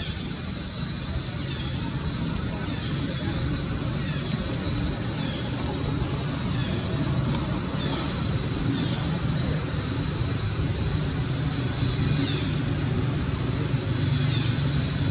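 Steady outdoor background noise: a low rumble with a thin high continuous whine over it, and short high falling chirps about once a second.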